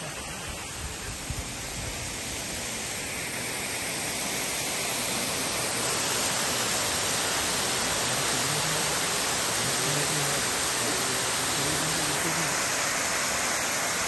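Waterfall water rushing, a steady noise that grows louder over the first few seconds and then holds.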